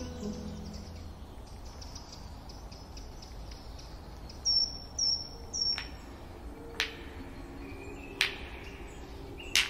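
Three short, high chirps about half a second apart, then four sharp clicks a second or so apart, over a faint low hum.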